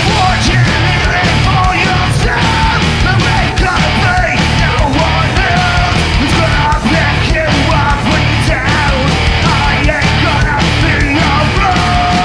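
A heavy metal band playing live and loud: distorted electric guitars, bass and pounding drums, with a vocalist shouting over them.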